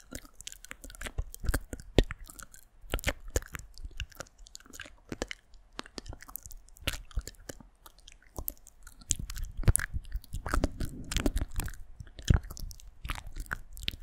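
ASMR mouth sounds close to the microphone: many short wet clicks and smacks at an uneven pace, with low muffled rustling joining in from about nine seconds in.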